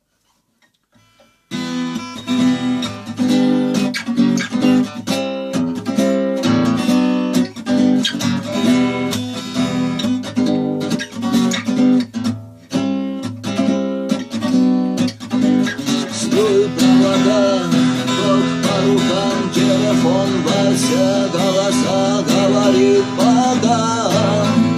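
Acoustic guitar intro to a song, starting about a second and a half in. From about the middle, a wavering, bending melody line plays over the guitar.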